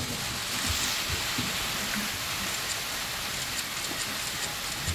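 A dense, steady barrage of camera shutter clicks from many press cameras firing at once, blending into a rain-like hiss, with a few soft low thumps.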